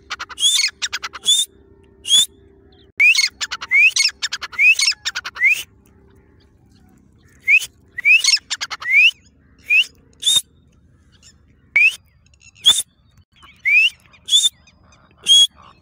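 Female grey francolin calling: short, sharp, rising whistled notes given singly and in quick runs, with a few fast stuttering note series. The calls come in bunches, with a pause of about a second and a half just past the middle.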